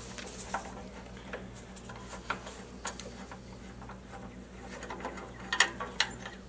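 Scattered light clicks and clinks of hand tools and small metal parts being handled on a small Tecumseh tiller engine during disassembly, with a quick cluster of sharper clinks about five and a half seconds in.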